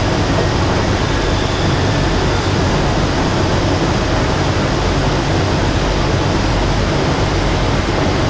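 Beijing Metro SFM04 subway train running through a tunnel, heard from inside the car: a loud, steady running noise with a strong low rumble.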